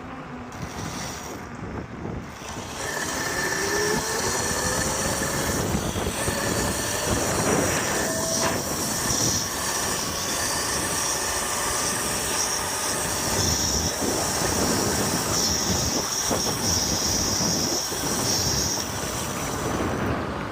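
Electric bike motor whining while riding. Its pitch climbs over the first several seconds as the bike speeds up, then it holds a steady high whine, over rushing wind and road noise.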